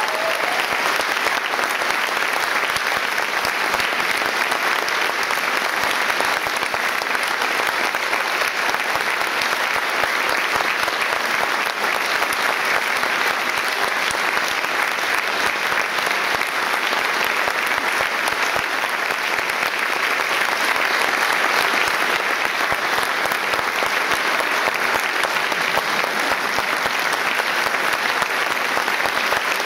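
Audience applauding steadily, a dense even clapping of many hands.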